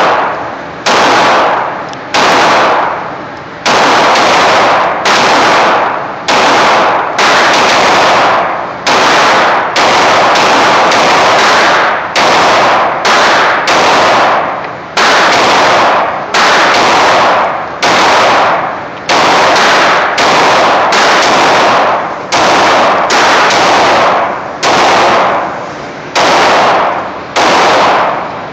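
Springfield XD Subcompact 9mm pistol firing a steady string of shots, about one a second. Each shot is a loud crack that overloads the recording and is followed by a long echo off the walls of an indoor firing range.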